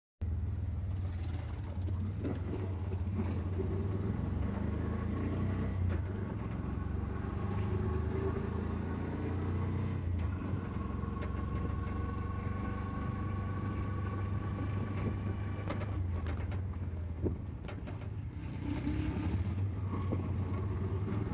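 Auto-rickshaw's small engine running with a steady low drone while riding along a street, heard from inside the open cab, with passing street traffic.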